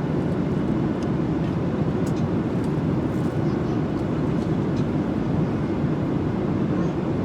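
Steady low noise of a passenger airliner in flight, heard from inside the cabin, with a few faint ticks.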